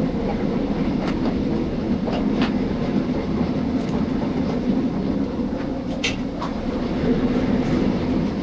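Steady low rumble of a busy commercial kitchen line with the gas range burners lit under the pans, with a few light clinks of utensils, the clearest about six seconds in.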